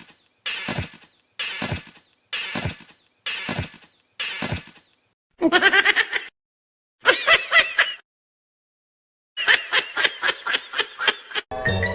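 Cartoon sound effects: six evenly spaced short noisy hits, then squeaky, high-pitched, sped-up-sounding voice sounds, and near the end a quick run of short laugh-like yelps.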